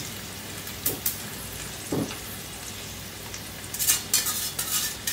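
Sliced onions, blanched and still damp, sizzling steadily as they deep-fry in hot oil in a steel kadhai, with a few sharp metal clinks of a wire spider strainer and colander against the pan. From about four seconds in a flurry of louder clinks and crackles comes as more onions are tipped in from the colander.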